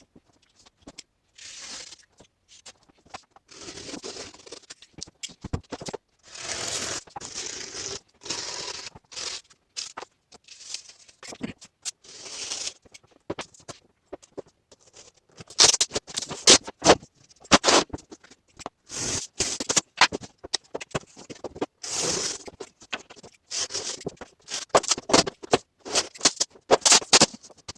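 Hands working on boards at a workbench: bursts of scraping and rustling in the first half, then a run of sharp knocks and clicks.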